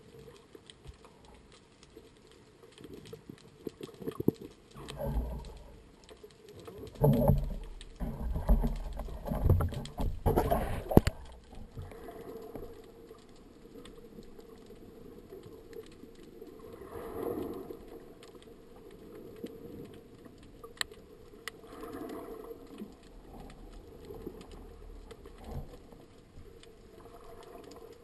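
Water sloshing and splashing around an underwater camera as a spearfisher at the surface moves and dives, loudest in a run of uneven bursts over several seconds, then a quieter, muffled underwater wash with a few faint clicks.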